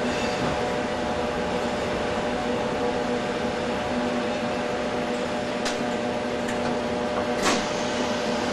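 Steady electrical hum inside a Sheffield Supertram passenger car. Two short sharp clicks come past the middle, the second louder.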